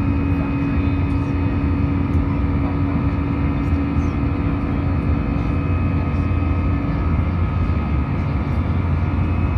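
Airbus A319's CFM56 jet engines and airflow heard from inside the cabin during the climb-out after takeoff: a steady, loud rush of noise over a low hum. A droning tone in it fades out about seven seconds in.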